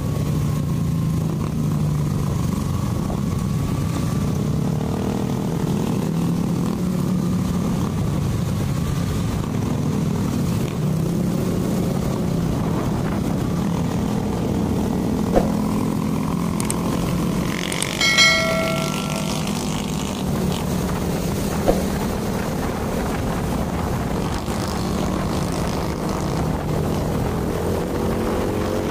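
Motor scooter riding in traffic: its engine runs steadily under wind and road noise. A short high-pitched tone sounds about two-thirds of the way in, and there are a couple of sharp clicks.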